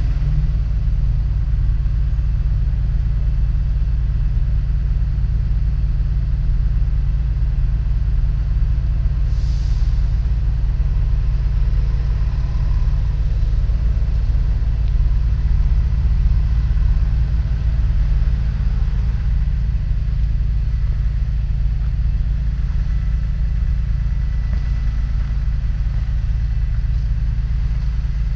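A steady, loud low rumble that hardly changes, with little sound above it. A short faint hiss comes about ten seconds in.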